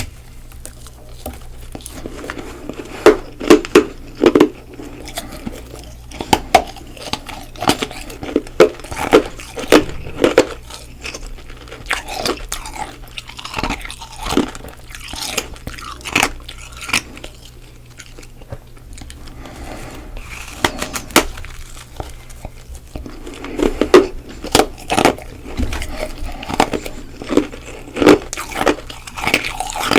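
Close-miked biting and chewing of freezer frost, both hard and soft. Sharp crunches come in bunches, with quieter chewing between them.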